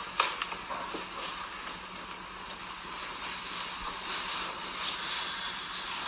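Steady hiss of background room noise in a phone recording, with a faint low hum and a few light taps in the first second.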